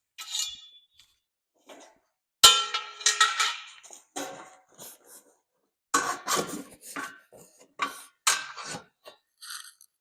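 Steel shipping-crate parts clanking and rattling as the crate is pulled apart. The loudest clang, about two and a half seconds in, rings briefly, and a quick run of clanks follows from about six seconds in.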